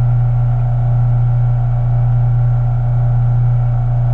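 Electric wire-stripping machine's motor running with a steady low hum.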